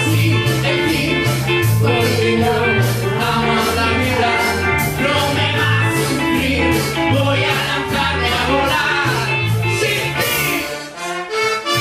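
Live band playing a ska song: drum kit and bass guitar keeping a steady beat under electric guitar, button accordions, horns and a lead singer. Near the end the band briefly drops out before coming back in.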